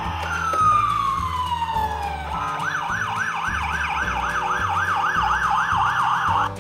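Dickie Toys fire engine's electronic siren sound effect: a tone falling in pitch for about two seconds, then a fast up-and-down siren warble, about three and a half cycles a second, that cuts off suddenly near the end.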